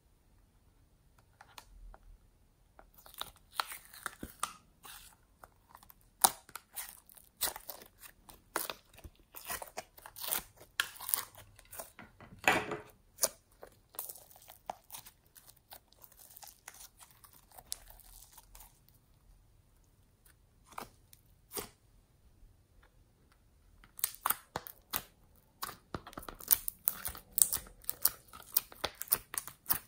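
Hand-worked slime being squeezed and pulled apart, giving runs of sticky pops and clicks. The pops thin out for a few seconds after the middle and come thick again near the end, as coloured jelly pieces are pulled out of a silicone mold.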